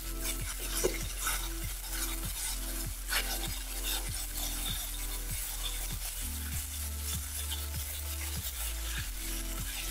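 Olive oil sizzling steadily in frying pans where swordfish fillets and capers are frying. Soft background music with a steady beat runs underneath.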